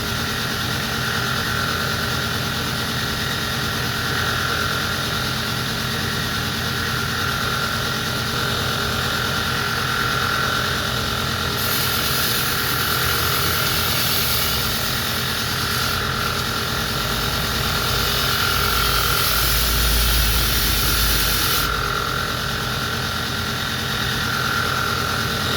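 Belt grinder motor running steadily, with the bill hook's edge ground freehand on the slack belt for about ten seconds from around the middle, adding a loud high hiss.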